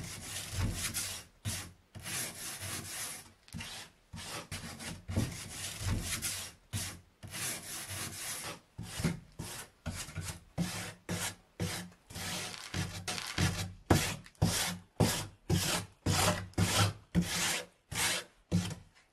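Hand wire brush scrubbing old paint off weathered wooden facade boards in back-and-forth strokes, slower at first and then about two strokes a second from the middle on.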